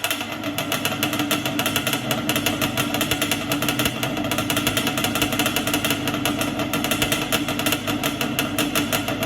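A car engine running steadily, with a rapid, even pulse.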